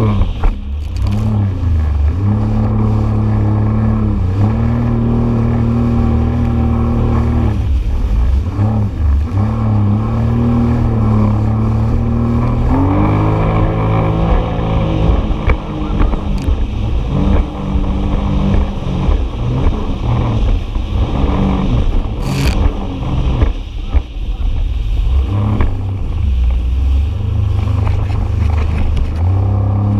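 Jet ski engine running at speed, its pitch dropping and climbing again several times as the throttle is eased and opened, over the rush of water and spray against the hull.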